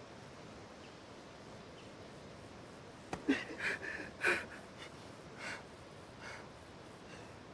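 A man's short huffing breaths and snorts: a quick cluster about three to four seconds in, then a few fainter ones.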